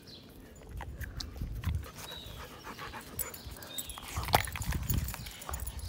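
A dog sniffing and panting close to the microphone, with scattered small clicks and one sharp click about four seconds in.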